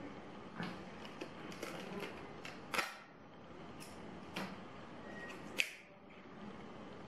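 Thin plastic backlight sheets from an iPhone 6 display crinkling and clicking as they are peeled and handled. Scattered crackles, the sharpest near the middle and again later on.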